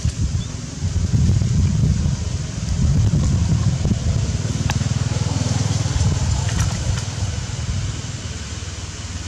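Low engine rumble of a motor vehicle, growing louder about a second in and easing off near the end, with a few faint clicks.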